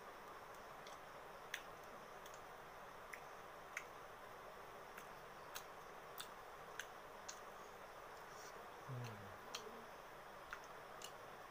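Quiet room tone with faint, scattered clicks, roughly one a second at uneven spacing, and a short low hum falling in pitch, an 'mm', about nine seconds in.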